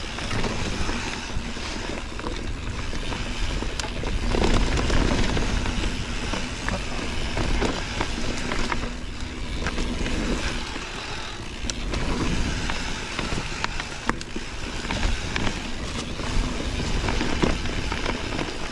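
Mountain bike rolling down a dirt singletrack: tyre noise on the dirt, with frequent sharp clicks and rattles from the bike over bumps, and wind on the microphone. It gets louder for a couple of seconds about four seconds in.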